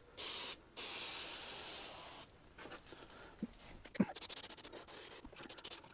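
Aerosol can of 3M headliner and fabric adhesive spraying: a short burst, then a longer hiss of about a second and a half. A run of faint quick clicks follows near the end.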